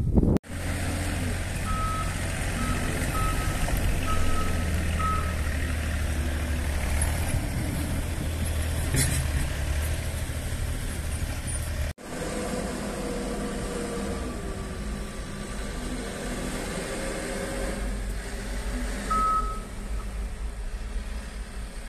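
Street traffic: a heavy vehicle's engine runs with a steady low rumble through the first half, with a string of short high beeps a couple of seconds in and one more near the end. After that the rumble drops to lighter car traffic.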